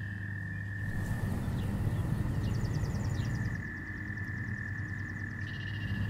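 A chorus of frogs calling from a pond, heard as one steady, unbroken high trill. A faster, higher pulsing call joins for about three seconds in the middle, over a low hum.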